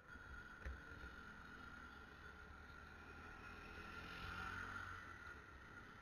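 Near silence: faint steady background hiss with a faint high hum.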